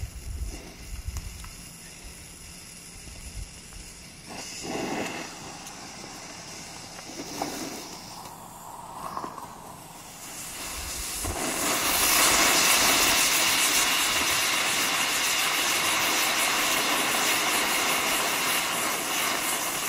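Snake toy novelty firework fizzing faintly with a few short sputters, then about eleven seconds in a loud steady hiss starts as it throws out sparks.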